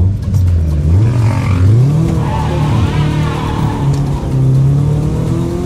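Mitsubishi Lancer engine, freshly given a full rebuild, accelerating on the road. The revs rise about a second in, hold steady through the middle, dip briefly, and start rising again near the end.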